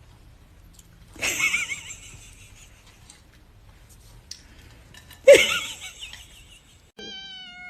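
A cat giving two loud, harsh yowls about four seconds apart, then starting a long, drawn-out cry that slowly falls in pitch near the end.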